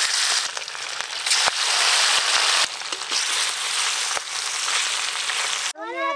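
Hilsa fish pieces sizzling in hot oil in a kadai as they are lightly fried, with oil popping and crackling throughout. The sizzle cuts off abruptly near the end, and a voice is heard briefly.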